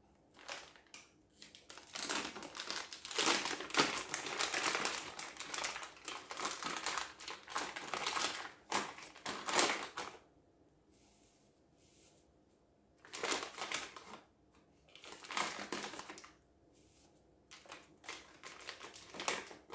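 Disposable plastic piping bag crinkling as it is handled and squeezed with soft cookie dough inside. A long stretch of crinkling through the first half, then three shorter bursts in the second half.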